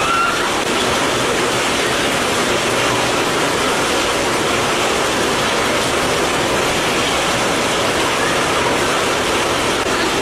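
Heavy rain falling steadily on wet pavement and standing floodwater, a constant hiss.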